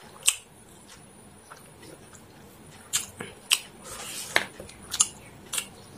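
Mouth sounds of a person eating chicken biryani by hand: about six short, sharp, wet smacks and clicks of lips and chewing, most of them in the second half.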